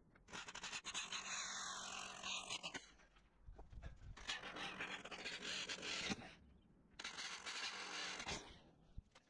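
A drill bit grinding slowly into the van's sheet-metal window frame, in three stretches with short pauses between, as pilot holes are drilled.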